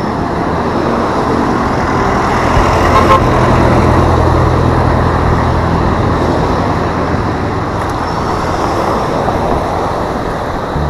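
Road traffic with a steady rush of noise, and a motor vehicle's low engine hum running through the middle few seconds as it passes.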